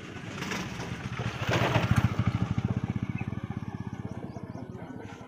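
A passing vehicle's engine: a rapid, even pulsing that swells about a second and a half in, is loudest around two seconds in, then slowly fades away.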